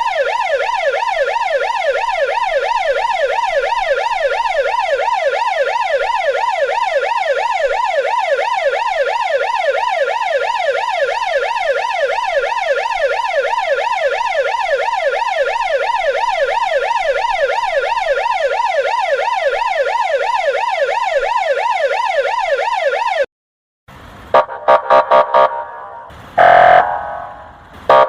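Russian police car siren in a fast yelp, its pitch sweeping rapidly up and down over and over. About 23 seconds in it cuts off. After a brief gap come several short blasts and a longer honk from the 'kryakalka' quacking special signal.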